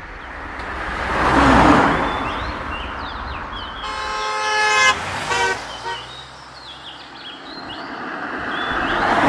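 Road vehicles passing by, the first swelling and fading about two seconds in and another approaching near the end. In between, a vehicle horn gives one blast of just under a second, then two short toots.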